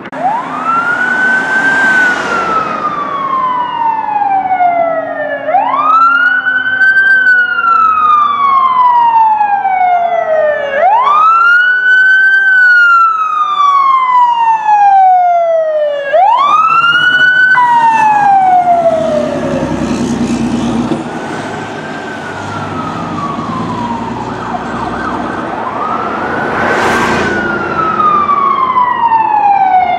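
LAFD emergency vehicle siren sounding a wail: each cycle rises quickly and falls slowly, about every five seconds. About two-thirds of the way through it drops abruptly to a fainter, more distant wail under a low vehicle rumble, then grows louder again near the end as the units approach.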